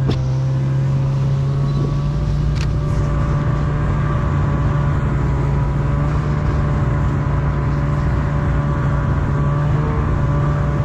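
A motor vehicle engine running at a steady speed, a continuous drone that holds unchanged.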